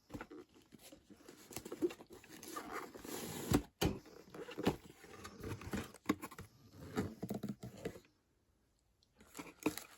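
A cardboard subscription box and its paper packaging being opened and handled: irregular rustling and crinkling with small knocks, and one sharp click about three and a half seconds in. The rustling stops for about a second near the end, then starts again.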